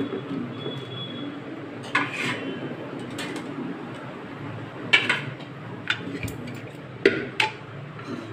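A plastic colander and hands clattering against an aluminium pressure cooker pot as pieces of raw meat are tipped in. There are about six sharp, irregularly spaced knocks over a steady low hum.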